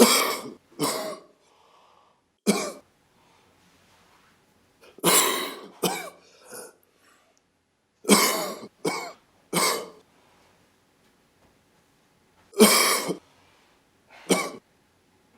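A person coughing repeatedly: about ten coughs, some single and some in quick runs of two or three, with pauses of a second or more between them.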